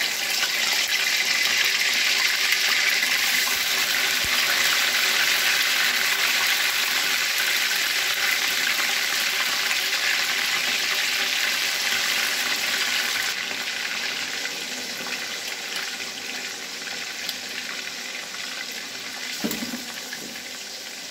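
Hot oil in a wok sizzling steadily as pieces of marinated chicken fry in it. The sizzle eases off gradually over the last several seconds.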